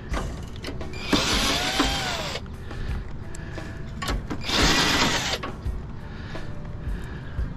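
Power drill/driver spinning screws out of sheet-metal panels in two short runs, about a second in and again near the middle, each spinning up and winding down, with light metal clinks between.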